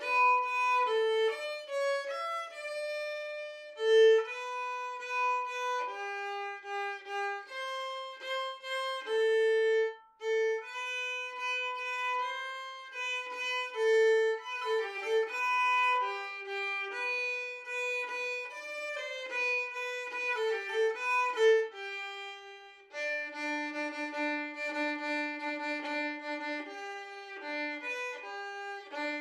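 Background violin music: a melody of held and quick notes, with a brief pause about ten seconds in and a lower held note sounding under the melody for a few seconds near the end.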